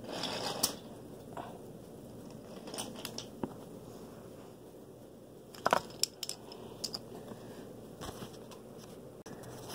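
Handling noise: rustling with scattered light clicks and knocks, one sharper knock a little past halfway.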